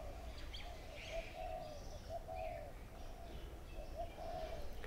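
Birdsong: a dove's short, soft cooing notes repeated over and over, with a few brief higher chirps from other birds over a low outdoor rumble.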